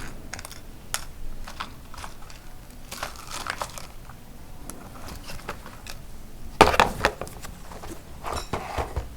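Hands rustling and crinkling through small electronic components and their packaging while picking out a resistor, with scattered light clicks. The loudest crinkle comes about two-thirds of the way in.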